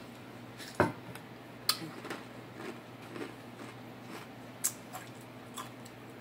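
A metal water bottle set down on a wooden table with a single knock about a second in, followed by chewing with a few sharp lip smacks and mouth clicks.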